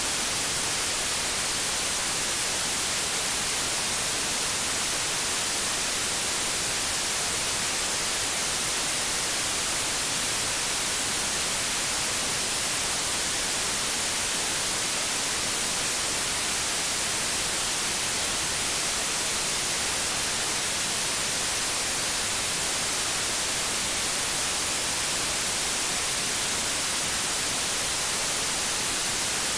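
Steady white noise: an even, unbroken hiss, brightest in the highs, with no change in level.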